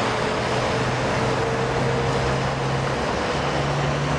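Interstate traffic going by: a steady rush of tyres and wind noise with the low hum of a passing double-trailer truck, its pitch stepping up slightly a little past three seconds in.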